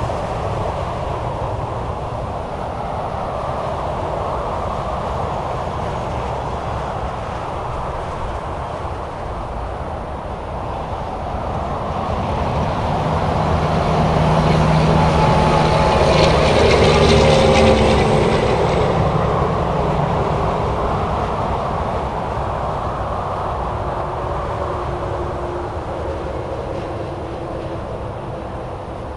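Continuous highway traffic: a steady rush of tyres and engines from passing vehicles. Midway through, a heavy vehicle passes close by. Its engine drone and tyre hiss swell to the loudest point of the stretch, then fade.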